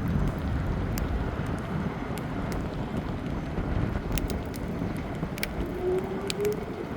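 Strong wind rushing and buffeting the microphone, with scattered sharp ticks. Near the end a faint tone starts and slowly rises in pitch.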